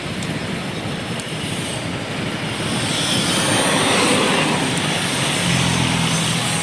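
Heavy road vehicle passing close by: a loud rush of engine and tyre noise that swells about halfway through, with a steady low engine hum near the end.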